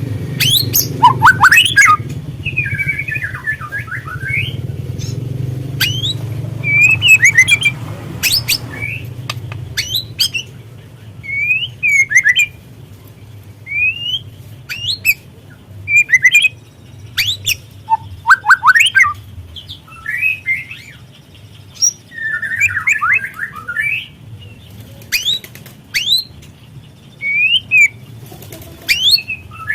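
Juvenile white-rumped shama calling: short rising chirps and harsh chattering bursts, repeated every second or two. A low hum runs under the first eight seconds or so.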